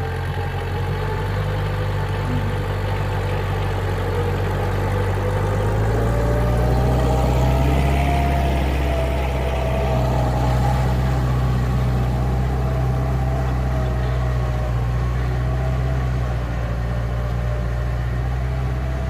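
An engine running steadily. Its pitch and loudness rise a little about six seconds in, then ease slightly and hold.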